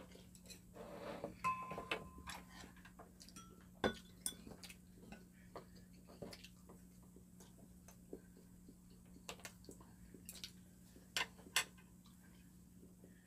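Chopsticks and spoons clicking and clinking against ceramic bowls: scattered light taps, with sharper clinks about four seconds in and twice near the end, over a faint steady hum.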